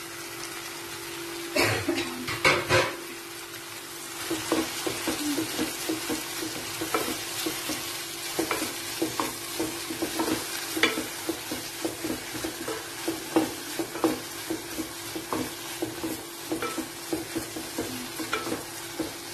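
Wooden spatula stirring crumbled paneer into frying onion-tomato masala in a non-stick pot, over a steady sizzle. A few louder knocks come about two to three seconds in, then quick irregular scrapes and taps against the pot as the stirring goes on.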